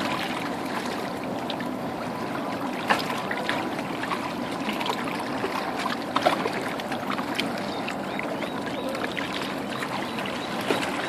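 River water lapping and washing against a rocky shoreline, a steady wash broken by a few small clicks and knocks.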